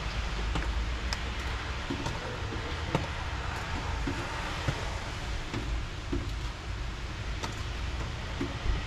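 Automotive wiring being dragged through the engine bay toward the firewall grommet: irregular light clicks and rustles as the wires rub and catch, over a steady hiss and low rumble.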